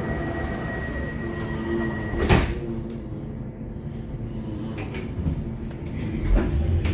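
Subway car's sliding doors closing. A steady high warning tone sounds, then cuts off as the doors shut with a single sharp knock about two seconds in, followed by a few faint clicks.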